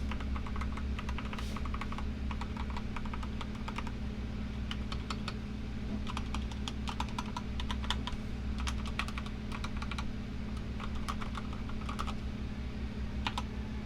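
Typing on a GK64XS mechanical keyboard with a fiberglass plate, lubed Keyfirst Gateron Cream linear switches and XDA keycaps: irregular runs of keystrokes with short pauses between them. A loud air conditioner hums steadily underneath.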